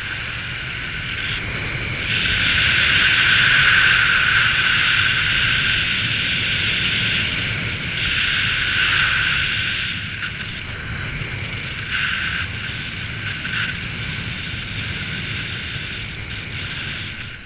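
Small aircraft's motor and propeller whining steadily over wind rush, the whine swelling and easing a few times as the throttle changes during a descent. It drops away just before the end, as the craft comes in to land.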